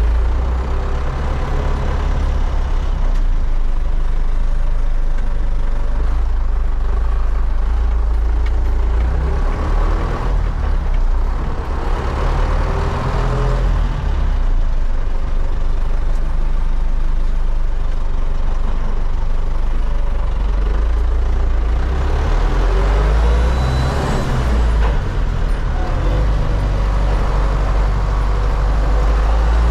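MTZ-80 tractor's 4.7-litre D-243 four-cylinder diesel engine running hard while driving, a deep steady drone whose note rises and falls a few times with the throttle.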